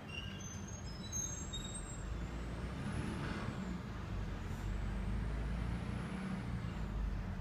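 Stadler FLIRT 3 electric multiple unit slowing into a station: a low rumble of wheels on the rails, growing louder past the halfway point. Over it runs a faint high electric whine from its traction equipment, stepping in pitch at first, then gliding up and down twice.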